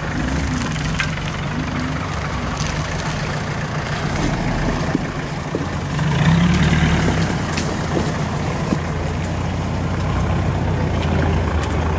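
Off-road 4x4 engines running at low speed as the vehicles crawl over cut branches. The engine gets louder about six seconds in as one vehicle passes close, with a few short clicks and snaps mixed in.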